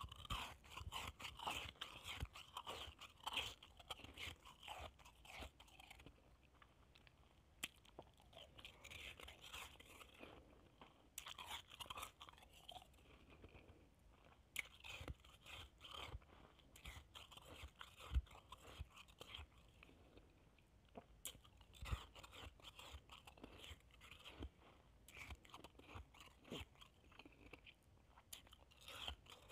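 A person chewing a mouthful of shaved ice, crunching it in bursts of fine crackles with short pauses between.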